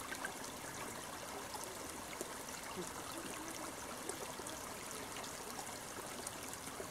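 A small forest stream trickling steadily, with a few soft gurgles as water runs into a plastic Sawyer squeeze-filter pouch held in the current.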